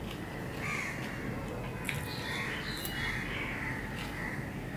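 A bird calling over and over, short calls about every half second, with a couple of faint clicks of eating.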